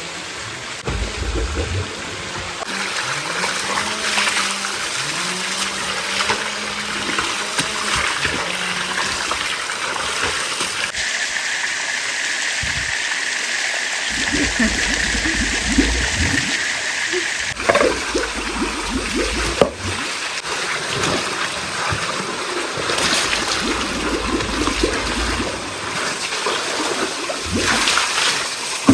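Stream water running and trickling, with splashing.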